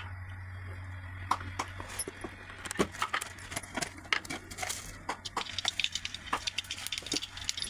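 Kitchen utensils and dishes clinking and knocking irregularly as they are handled, over a steady low hum.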